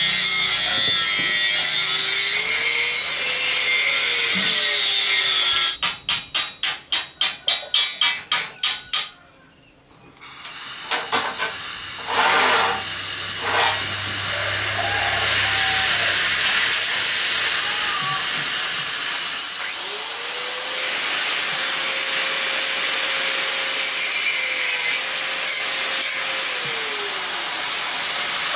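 LPG cutting torch hissing steadily as it cuts through an iron pipe. About a fifth of the way in, the hiss gives way to a run of rapid, even pulses, about three a second, then drops out briefly before the steady hiss comes back.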